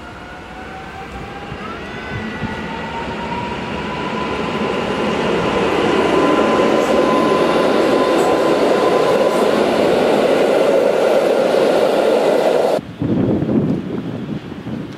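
EN57AL electric multiple unit running past along the platform, its traction motors whining in a steadily rising tone over the growing rumble of wheels on rails. The sound cuts off abruptly near the end.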